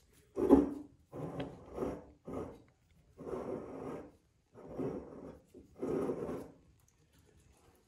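Handling noise: about seven short, rough rubbing sounds in a row.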